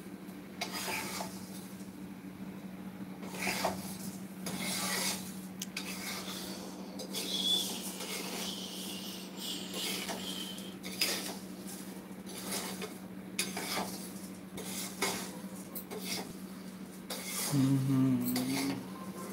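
A steel spoon scraping and clinking against a steel kadhai while dry rice flakes are stirred and roasted, in irregular strokes, over a steady low hum.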